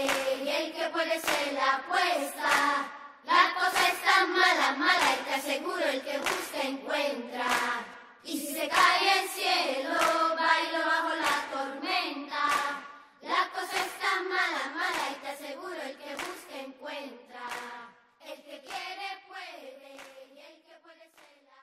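Song outro: voices singing together over hand claps, with no bass, fading out near the end.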